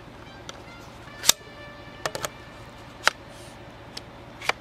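Sharp clicks and snaps of an adjustable SUP/kayak paddle's shaft sections and locking clasp as they are fitted together and adjusted, about half a dozen, the loudest about a second in and about three seconds in.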